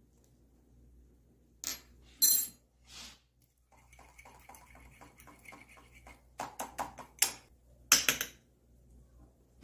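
Metal fork whisking beaten egg mixture in a ceramic bowl, ticking against the bowl about five times a second, with a few louder sharp clinks of metal cutlery on the bowl at the start and again near the end.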